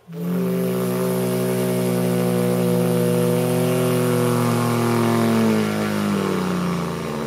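A person's mouth imitation of a World War II piston-engine dive bomber diving: one long, loud engine-like hum that starts abruptly, holds steady, then slides slowly down in pitch over the last couple of seconds.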